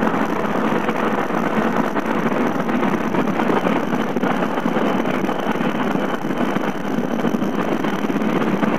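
Motorcycle running steadily on the move, its engine mixed with a constant rush of wind and road noise.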